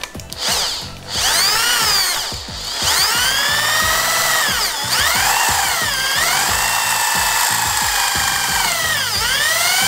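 Power drill driving a twist bit into the head of a pop rivet to drill it out of a PVC pipe. The motor whine starts about a second in, drops off briefly, then runs on, its pitch sagging several times as the bit bites into the rivet.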